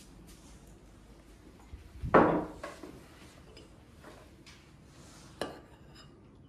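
Tableware being handled at a wooden table in a quiet room: one sharp knock about two seconds in, and a smaller click from a spoon against a ceramic bowl later on.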